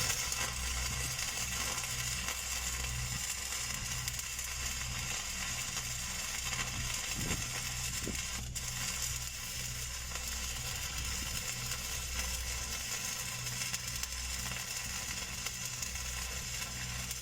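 Stick (SMAW) welding arc burning steadily with a continuous crackling hiss as a downhill pass is run on pipe.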